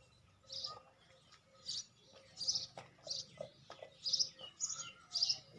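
A small bird chirping over and over, short high chirps coming about once or twice a second, with some fainter lower calls and a low hum underneath.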